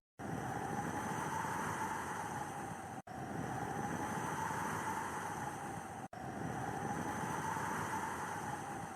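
Snowstorm wind: a steady rushing noise with a whistling howl that slowly swells and fades. The sound cuts out completely for a split second about every three seconds.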